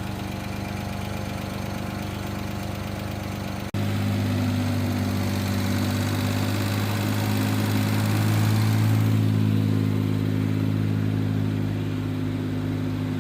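Suzuki Jimny engine idling steadily. About four seconds in, the sound changes abruptly to a louder, deeper idle.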